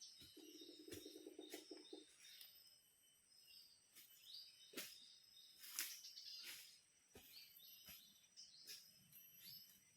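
Faint forest ambience: small birds chirping again and again over a steady high insect whine, with a brief low pulsed buzz in the first two seconds.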